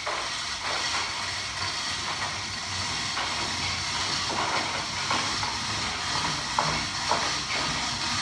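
Manual chain hoists being hauled by hand: the chains clink and rattle in irregular clicks over a steady hiss.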